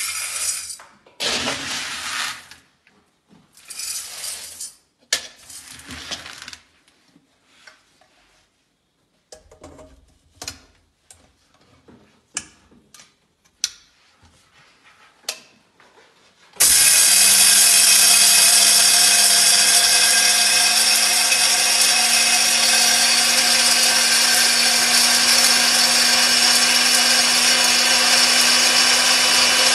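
Dry maize kernels poured from a cup into the steel chamber of a small electric grain mill (posho mill) in a few rattling bursts, then clicks and knocks as the lid is shut. A little over halfway through, the mill's motor starts suddenly and runs loud and steady with a constant hum, grinding the maize into flour.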